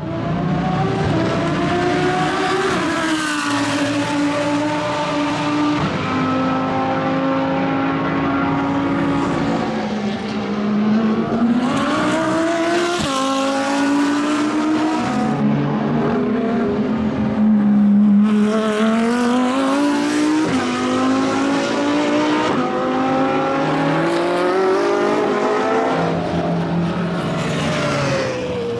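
Lamborghini Huracán GT3's naturally aspirated V10 at racing speed, its note climbing and dropping over and over as it accelerates and brakes.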